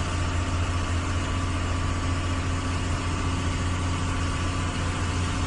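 Engine of the vehicle the footage is shot from, running steadily with a deep, even hum, heard from inside the cab along with road noise.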